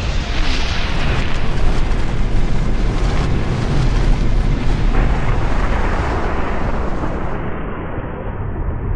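Trailer sound effect of a long, explosion-like blast with a heavy low rumble that swells in at the start and holds. About seven and a half seconds in, its high end is cut away, leaving it muffled.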